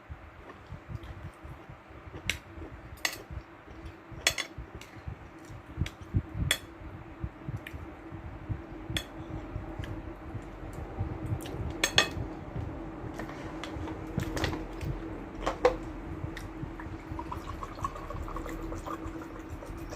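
Metal fork and knife clinking and scraping against a plate while eating, in a dozen or so irregular sharp clicks, over a steady low hum.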